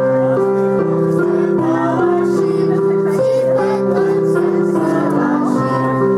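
Electronic keyboard playing a tune in held chords, with voices singing along.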